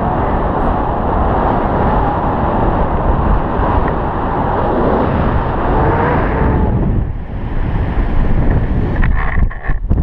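Wind rushing over an action camera's microphone in paragliding flight, a loud steady noise that thins about seven seconds in and turns choppy, with short buffets, near the end.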